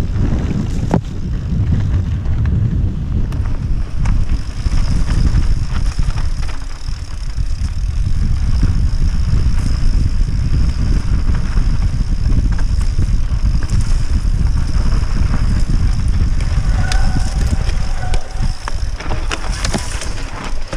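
Wind rumbling on the microphone of a handlebar-mounted camera on a mountain bike descending fast on dry, rocky dirt singletrack, with the steady clatter and rattle of the bike, a Scott Spark full-suspension, over stones and ruts.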